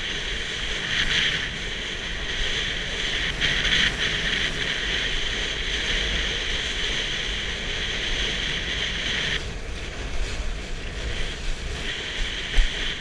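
Wind buffeting the rider-mounted camera's microphone and water rushing under a kiteboard as it planes across choppy water. A higher hiss cuts out about nine seconds in and comes back near the end.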